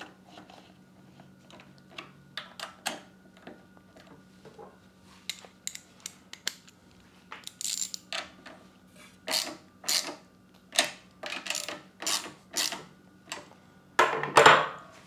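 Socket wrench ratcheting in short strokes, a run of sharp clicks, as the nuts on the carburetor studs of a Predator 212 engine are snugged down. A louder clatter comes near the end.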